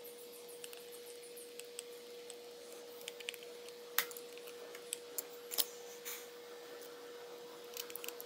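Small metallic clicks and taps from a screwdriver and carburetor parts being handled while a Carter BBD two-barrel carburetor is reassembled. The sharpest clicks come about four and five and a half seconds in, over a faint steady hum.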